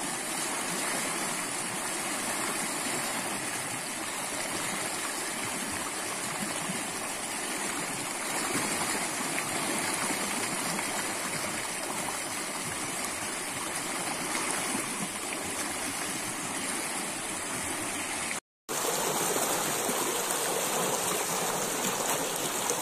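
Shallow mountain stream running over rocks, a steady rushing and gurgling of water. It cuts out for a moment near the end, then carries on.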